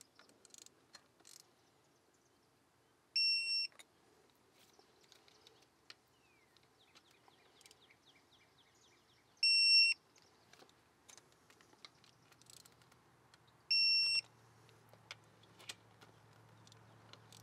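Electronic torque wrench beeping three times, each a steady beep of about half a second, some five seconds apart, each signalling that a bolt has reached the set 6.4 newton-metres. Faint ratchet clicks come between the beeps.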